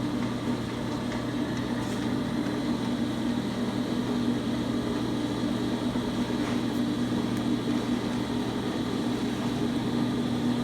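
Ammco 4000 disc and drum brake lathe running, its electric motor and spindle giving a steady hum.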